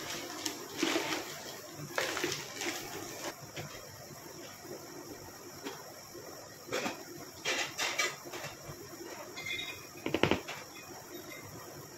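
Kitchen handling noises: a plastic piping bag rustling and a spoon scraping and dropping mascarpone cream into it. They come as a string of short bursts, the loudest about ten seconds in.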